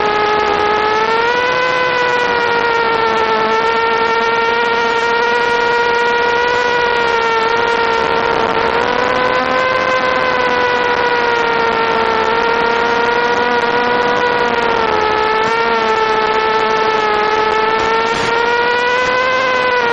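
Brushless motors and propellers of a mini quadcopter (Suppo motors) whining steadily, the pitch rising and falling gently with throttle: up about a second and a half in, a dip around three quarters of the way through, up again near the end, over a constant hiss.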